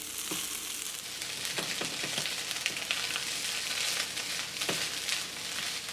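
Egg fried rice and torn crab sticks sizzling in an oiled pan while being stir-fried, with a steady hiss and a few light scrapes or clicks of the spatula.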